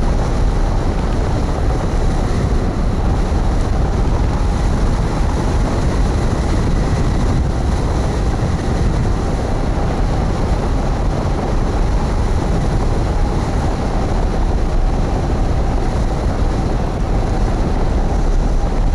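Heavy, steady wind noise from the airstream rushing over the microphone of a camera mounted on a hang glider's wing in flight, a deep continuous rumble with a faint steady whistle underneath.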